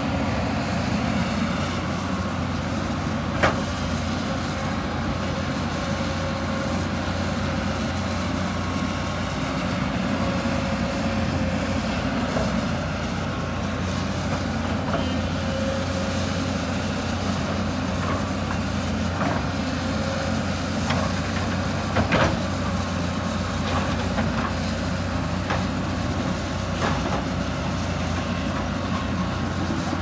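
Hyundai 220 crawler excavator's diesel engine running steadily, with scattered metal clanks and knocks from the machine at work; the sharpest knocks come a few seconds in and again about two-thirds of the way through. Later on it crawls along on its steel tracks.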